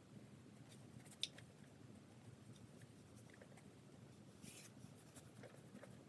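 Faint scratchy strokes of a large paintbrush spreading paint across a stretched canvas, with one sharp tap about a second in and a brief louder brushing stroke near the middle.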